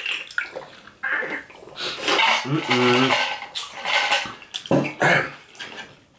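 Wooden spoons and forks clicking and scraping on a tray of rice and beef and broccoli, with eating sounds. A short hum of a voice about two and a half seconds in.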